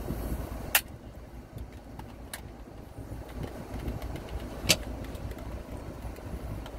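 Three sharp clicks as a clipboard is levered against the metal crown cap of a glass Coke bottle and slips off it, the loudest about two-thirds of the way through. A low steady rumble runs underneath in the car cabin.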